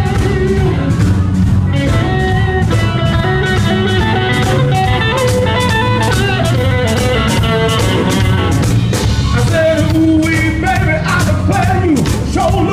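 Blues band playing live: electric guitar over bass and a steady drum beat.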